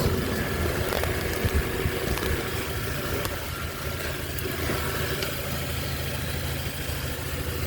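2018 Chevrolet Equinox's 1.5-litre turbocharged four-cylinder engine idling steadily.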